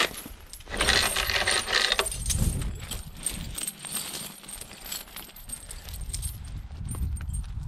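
A steel tractor tire chain rattling and clinking as it is lifted and handled, loudest for about a second near the start, then lighter jingling of the links.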